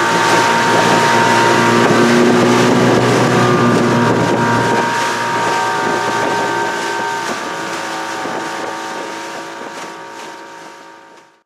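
Outboard motorboat engine running steadily under way. It fades over the last few seconds and then cuts off abruptly.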